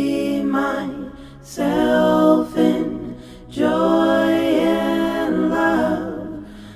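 Music: an unaccompanied singing voice holding three long, drawn-out phrases without clear words.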